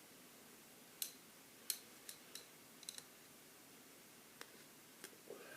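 Sharp little clicks and taps of a plastic toy pony with dragonfly wings being handled, its wings and head moved: about eight clicks, the loudest two a second or so in, over a faint background.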